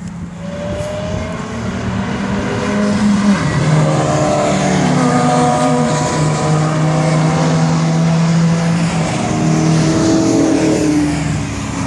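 Several track cars passing at speed, their engines at high revs, the pitch of each shifting as it goes by and as it shifts. The sound swells from about three seconds in and eases near the end.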